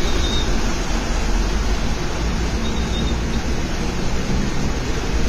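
A vehicle ploughing through deep floodwater: a steady rush and churn of water pushed aside by its bow wave, over a low rumble.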